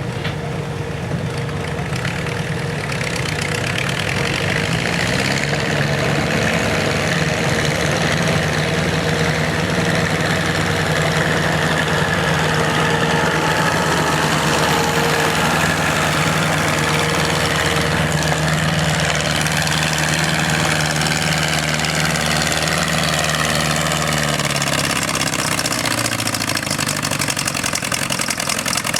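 Farm tractor engine running hard: it revs up about five seconds in, holds a steady pitch under load for most of the run, then drops back near the end.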